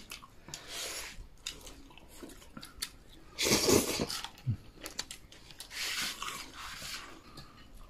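People slurping and chewing wide, flat hand-pulled noodles, in separate airy slurps. The loudest comes about three and a half seconds in, and a longer, softer one follows around six seconds.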